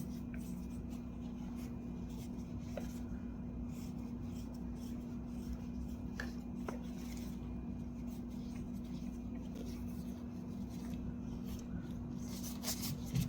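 Quiet handling of a vintage 35mm camera and its lens: soft rubbing with a few small clicks, and a louder click near the end, over a steady low hum.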